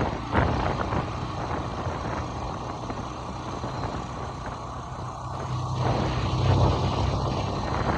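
A vehicle's engine running steadily at low speed with a low hum, getting a little louder about three quarters of the way through.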